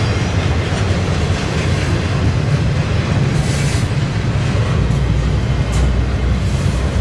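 Double-stack intermodal well cars rolling past: a steady rumble and rattle of steel wheels on the rails. A deeper low rumble builds near the end as the train's mid-train diesel locomotives draw near.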